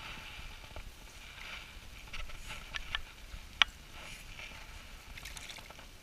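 Scattered small clicks and knocks from handling an ice-fishing rod and spinning reel, with one sharp click about three and a half seconds in, over a steady low rumble of wind on the microphone.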